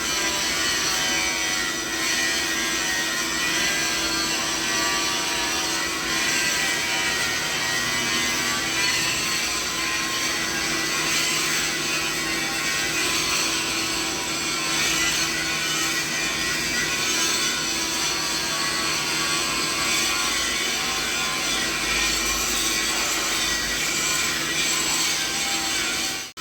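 Steady machinery noise spread from low to high pitches: a constant hum under an even, dense hiss, holding the same level throughout.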